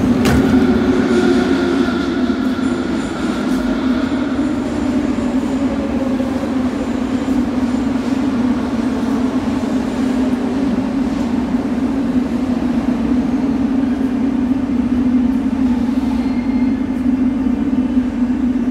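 Minsk Metro train: a falling whine over the first few seconds, then a steady low hum as it stands at the platform with its doors open.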